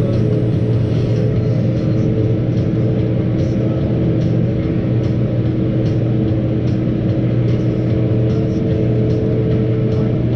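Tractor engine running steadily under load as it pulls a disc harrow across a field, a constant low drone with a few steady higher tones over it.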